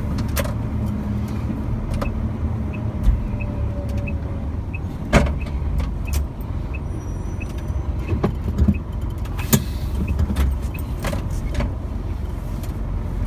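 Truck engine running steadily, heard from inside the cab, with scattered clicks and knocks over it; the sharpest knock comes about five seconds in.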